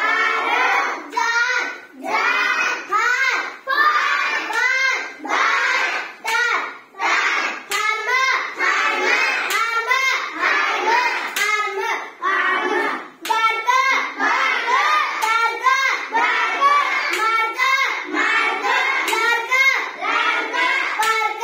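A child's high voice reading a list of short English words aloud, one after another in a sing-song chanting cadence.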